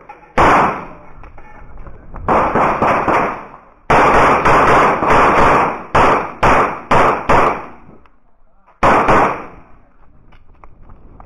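CZ 75 Shadow pistol firing strings of rapid shots in quick pairs and bursts, with short pauses between groups, each shot sharp with a brief echo; the last shot comes about nine seconds in.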